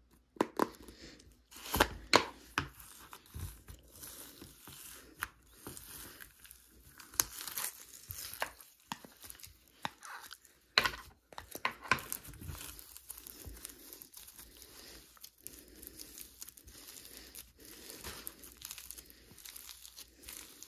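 Crunchy textured slime being pulled from its tub and stretched by hand, crackling and popping in irregular bursts, with a few louder snaps.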